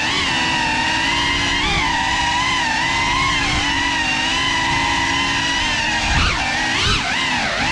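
GEPRC CineLog 35 cinewhoop's brushless motors and ducted propellers whining in flight. The whine holds a steady pitch for most of the time, then drops and rises sharply a few times near the end as the throttle is cut and punched.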